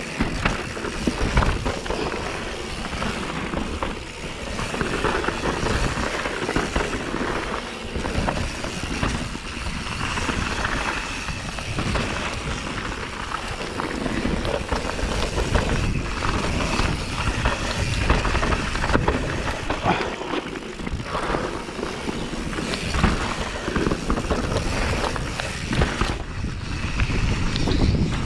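Mountain bike riding down a dirt trail: steady tyre noise on dirt and stones, with frequent rattles and clatters from the bike over bumps.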